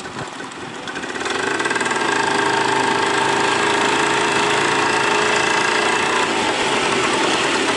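Moped engine running at a steady speed, growing louder about a second in and then holding even.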